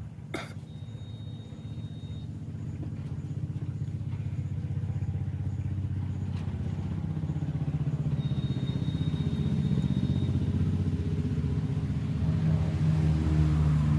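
A road vehicle's engine running, growing steadily louder over the stretch, with a click about half a second in.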